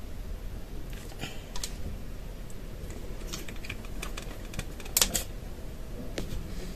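Scattered light clicks and taps of small plastic make-up containers being handled, coming at irregular intervals, with a sharper double click about five seconds in.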